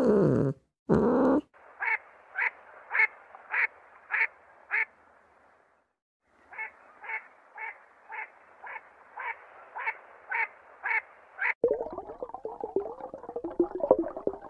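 A short, bright animal call repeated about twice a second, in two runs with a pause of a second or so between them. Before it, a long pitched call trails off, and near the end a dense crackling sound takes over.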